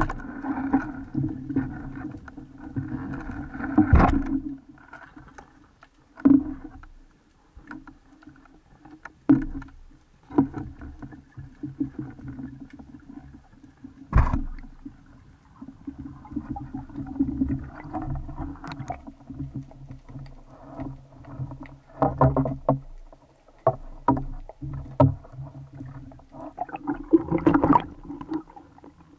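Underwater sounds of spearfishing: a sharp crack from a band speargun firing at the very start, then irregular knocks, clicks and water noise from the diver and gear while rising, with a louder burst of splashing at the surface near the end.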